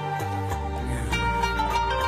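Background music with plucked string instruments over a steady bass line.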